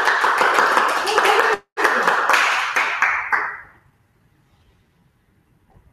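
A few people clapping in quick, irregular claps, with a brief break about one and a half seconds in, dying away by about four seconds.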